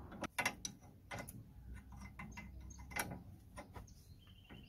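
Irregular light metallic clicks and clinks of a spanner and a loosened suspension bolt being handled, a few louder ticks among them.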